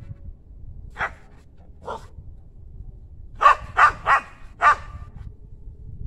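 A dog barking: two separate barks, then a quick run of four louder ones.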